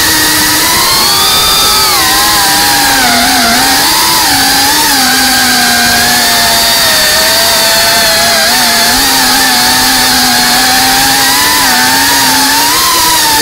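FPV racing quadcopter's brushless motors and propellers whining, the pitch rising and falling with the throttle.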